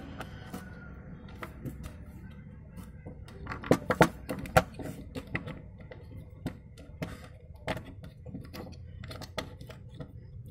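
Plastic toy building bricks clicking and clacking as they are handled and pressed together, with a quick cluster of louder clacks about four seconds in.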